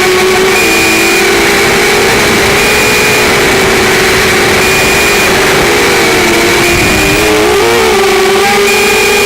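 QAV200 FPV racing quadcopter's motors and propellers running under heavy hiss, their whine wavering up and down in pitch as the throttle changes, with a brief dip and wobble near the end.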